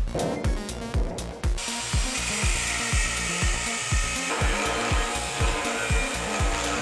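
Background music with a steady beat over a handheld angle grinder cutting a steel truck frame rail. The grinder's hiss comes in about one and a half seconds in.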